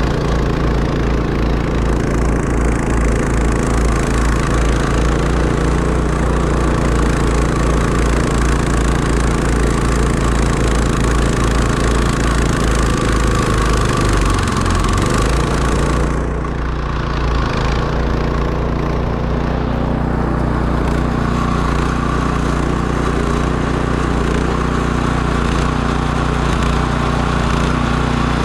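Can-Am Defender side-by-side's engine running steadily, its engine speed dipping briefly about halfway through before settling again.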